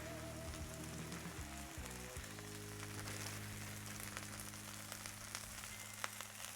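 Cheese and toppings sizzling on a Blackstone flat-top griddle as the cheese underneath fries, under background music with long held notes.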